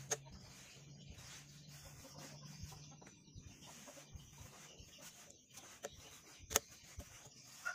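Faint rubbing and small clicks as red rubber slingshot tubing is pulled through holes in a wooden slingshot frame, with one sharp click near the end. Chickens cluck faintly in the background.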